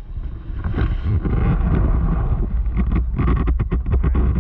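Engines of a crowd of ATVs, three-wheelers and side-by-sides running, a dense mechanical rumble, with wind rumbling on the microphone.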